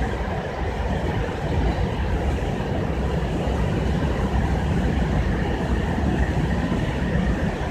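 Indian Railways passenger train of red-and-grey LHB coaches running past at speed, a steady rumble of wheels on the rails.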